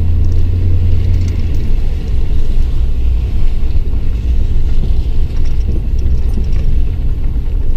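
Steady low rumble of a truck driving, engine and road noise heard from inside the cab.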